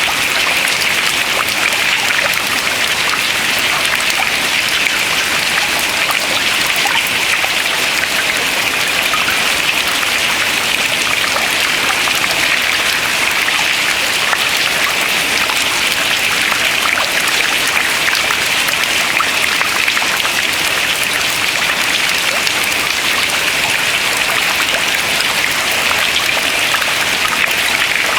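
Water dripping from ice into the water below, many drops falling fast enough to merge into a steady, dense run of small clicks.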